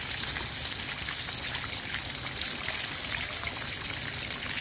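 Whole ikan baung catfish deep-frying in a wok of hot oil: steady sizzling and crackling as the oil bubbles around the fish.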